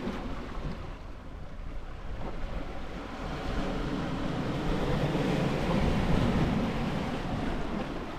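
Sea waves washing on the shore, with wind buffeting the microphone. The wash swells about halfway through and eases off near the end.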